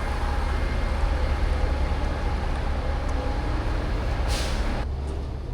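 Heavy truck running, with a steady low engine drone and road noise. There is a short hiss of air about four seconds in, and the sound drops off abruptly near the end.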